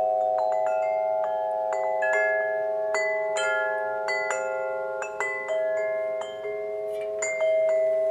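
Wind chimes ringing: irregular strikes, several at a time, whose clear tones ring on and overlap in a continuous shimmer.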